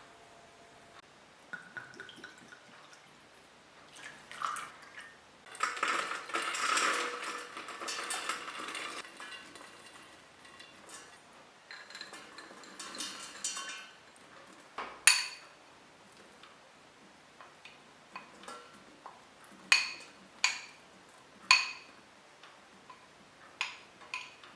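Kitchen utensils and dishes clinking and knocking against bowls. A longer busy stretch of rustling and scraping comes about six seconds in, then a run of sharp, ringing clinks.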